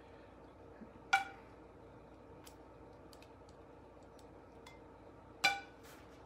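Metal kitchen tongs clinking twice against a bowl, about a second in and again near the end, each clink ringing briefly, over a faint steady hum.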